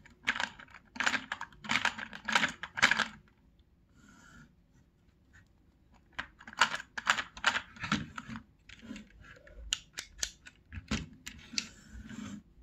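Lego 4x4 piston vacuum engine running slowly and unevenly, its plastic parts clattering in rapid irregular clicks and clacks. The clattering stops for a few seconds and then resumes.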